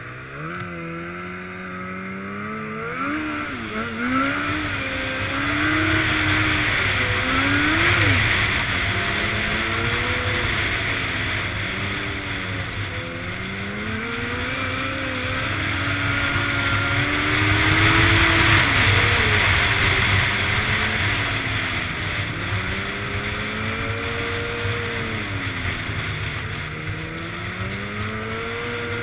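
Snowmobile engine revving up and down again and again as the throttle is opened and eased, its pitch climbing steeply in the first few seconds. Wind rushes over the helmet-mounted microphone, loudest about a quarter of the way in and again past the middle.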